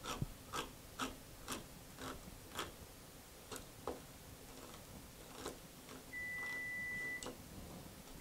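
Manual crank can opener being turned around the lid of a tin can, its cutting wheel clicking about twice a second, then more slowly. About six seconds in, the oven's timer sounds one steady high beep lasting about a second.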